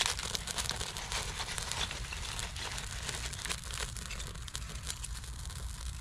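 Soft, irregular crackling of a small fire from a burning paraffin-wax-coated cedar tinder bundle, mixed with rustling as a stick of kindling is picked up and held to the flame, over a low rumble.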